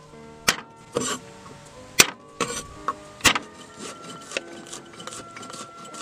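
A steel cleaver hitting garlic on a wooden chopping board: about five heavy knocks as the cloves are smashed with the blade, then quicker, lighter chopping taps as the garlic is minced. Background music with held tones plays underneath.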